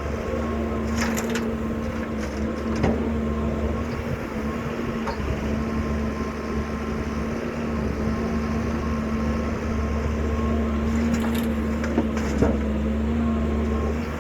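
Excavator's diesel engine running steadily under work, with a few sharp knocks, notably about three seconds in and twice near the end.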